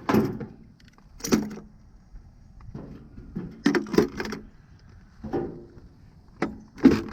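Metal clanks and knocks of tools being handled in a steel 50-caliber ammo box used as a toolbox: a string of sharp strikes, several close together in the middle and two more near the end, some ringing briefly.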